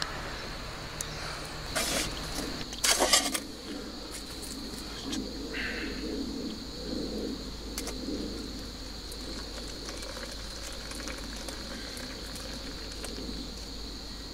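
Stainless camping pot and lid clanking as the pot is handled, with two loud clatters about two and three seconds in, then hot water poured from the pot into a metal cup. A steady high insect drone runs underneath.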